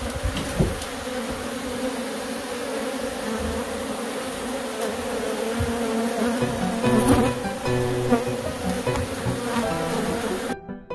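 A large mass of Africanized honey bees buzzing steadily, a dense hum from a colony disturbed by the comb being cut out. Piano music cuts in abruptly just before the end.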